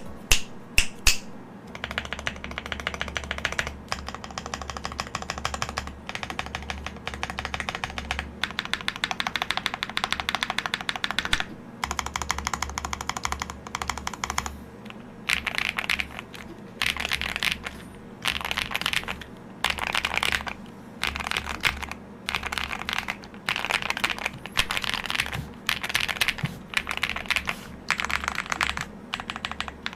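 Typing on a GrayStudio Space80 custom mechanical keyboard with an FR4 plate, soldered tungsten-steel switches and AMK8008 keycaps: crisp key clicks in quick runs separated by short pauses, with a few louder single clacks in the first second.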